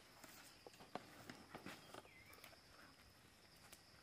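Near silence: faint outdoor ambience with a steady high insect drone and scattered small clicks and crackles.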